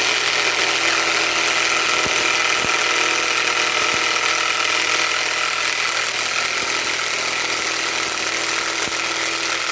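Kobalt mid-torque cordless impact wrench running in reverse, hammering steadily as it backs a 10-inch lag screw out of hardwood.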